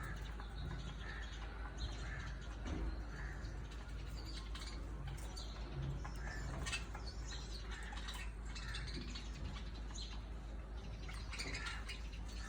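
Budgerigars chirping: many short, scattered chirps over a steady low hum.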